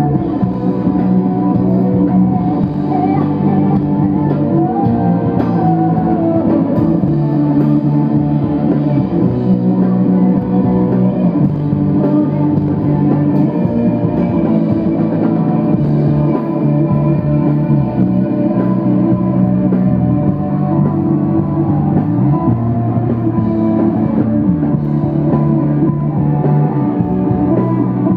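A rock band playing live: guitars over a drum kit, a dense, steady wall of sound with chord changes every couple of seconds. It sounds dull, with little treble.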